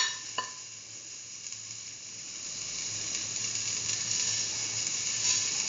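Diced chayote sizzling in hot ghee in a pan as roasted vermicelli is poured in: a steady hiss that builds up after the first couple of seconds.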